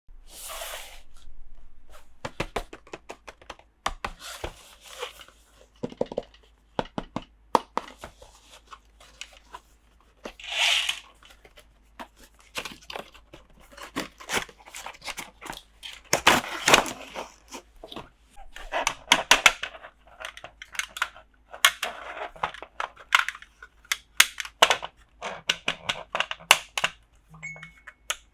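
Toy packaging being torn open and handled: tearing and crinkling swishes mixed with irregular clicks and taps of small plastic pieces.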